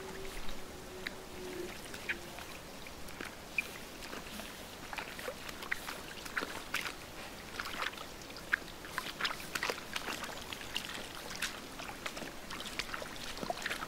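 Light splashes, drips and plinks of water in a shallow puddle as someone wades through it and the stirred water settles, with many small sharp ticks scattered irregularly. A steady hum stops about two seconds in.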